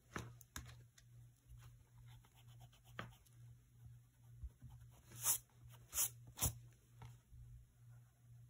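Pencil and eraser working on drawing paper: light taps and soft scratching, with three short, louder scratchy strokes a little over five to six and a half seconds in. A steady low hum runs underneath.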